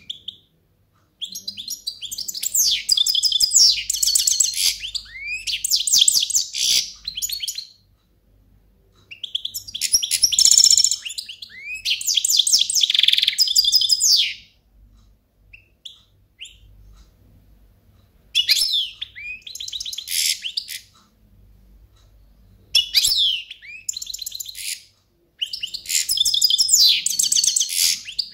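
European goldfinch singing: five phrases of rapid high trills and chirps, each a few seconds long, separated by short pauses.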